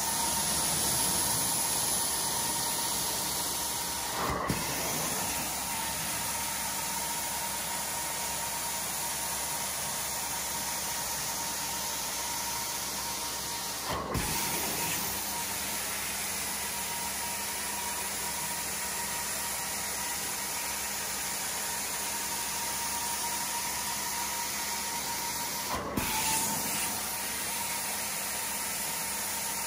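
Sapphire carpet-cleaning wand doing hot-water extraction: a steady loud hiss of suction and spray with a steady tone running through it. Three brief clicks break it, a few seconds in, about halfway and near the end.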